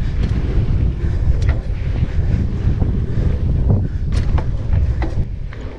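Wind buffeting the microphone over the rumble of mountain-bike tyres rolling fast on a packed dirt trail, with a few sharp clicks from the bike.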